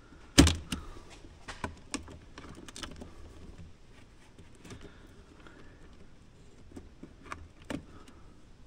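Irregular small clicks and taps of plastic and metal parts on a radio-controlled crawler's chassis being handled and fitted by hand around the transfer case and drive shafts, with one sharper knock about half a second in.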